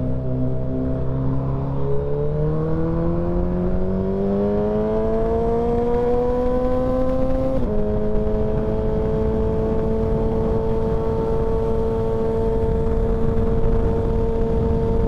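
Suzuki Hayabusa's inline-four engine under way: the revs climb steadily for several seconds, drop sharply at an upshift about eight seconds in, then hold steady at a cruising pitch.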